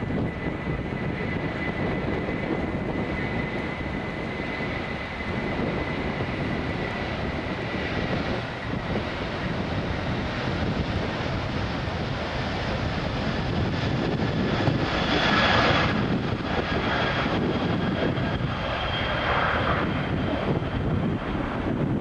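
Aircraft engines running nearby: a steady rush with a thin high whine that slowly drops in pitch, growing louder about two-thirds of the way through as new whining tones come in.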